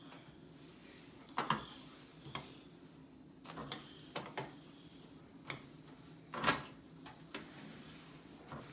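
Scattered light knocks and clinks on a gas stovetop as it is wiped down with a cloth and its burner parts are bumped and moved, about ten in all, the loudest about six and a half seconds in.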